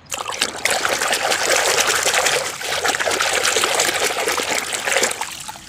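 A hand sloshing and scrubbing a toy excavator in a basin of muddy water, the water splashing continuously before easing off near the end.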